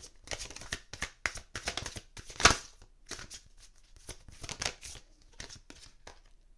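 Oracle cards being shuffled and handled: a run of quick papery rustles and flicks, with one sharper snap about two and a half seconds in.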